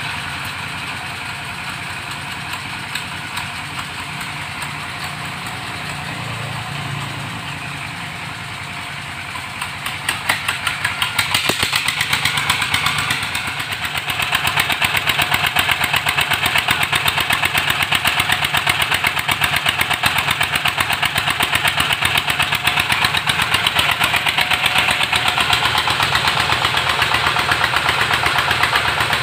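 Stationary diesel engine driving a well-drilling rig, running steadily. It grows louder about ten seconds in and keeps a rapid, even beat from then on.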